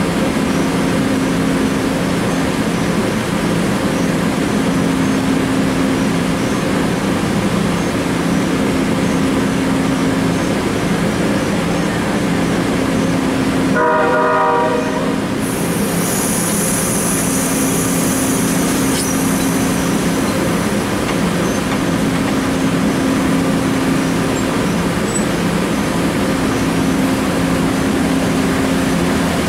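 Amtrak passenger train with stainless-steel cars running alongside the platform, its steady engine hum heard throughout. A short horn-like blast comes about halfway through, after which a high hiss joins the train noise.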